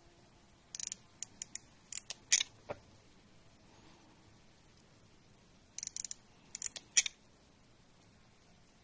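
Short, sharp clicks and snips from small hand tools working the parts of a connector contact, in clusters: a few about a second in, more around two and a half seconds, and another group around six to seven seconds.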